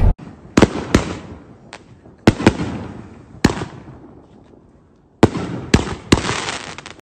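Aerial fireworks bursting overhead: about eight sharp bangs, each trailing off in a fading echo. Five come in the first half, then a quiet gap of more than a second, then a final cluster of three.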